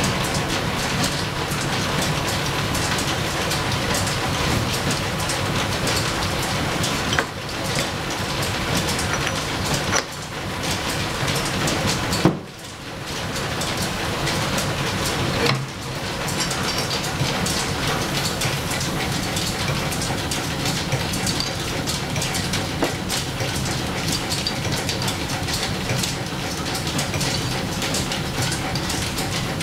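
Antique belt-driven lathe and overhead line shaft with flat leather belts running, a dense, even mechanical clatter. A few sharp knocks come in the first half, each followed by a brief dip in the noise, the loudest about twelve seconds in.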